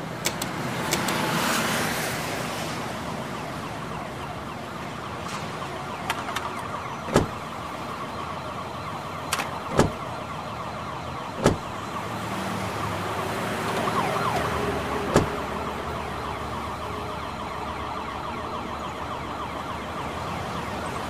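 Steady background noise with a siren wailing over it, broken by four sharp clicks a couple of seconds apart.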